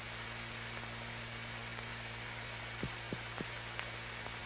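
Steady low hum and hiss of the soundtrack's background noise, with three faint, quick clicks a little under three seconds in.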